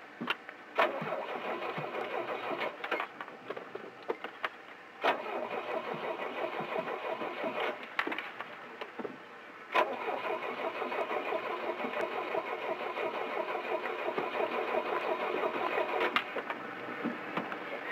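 Motorboat's inboard engine being cranked by its electric starter in three bouts, each beginning with a click, the last and longest running about eight seconds, without the engine catching. The passenger suspects the fuel tank is empty.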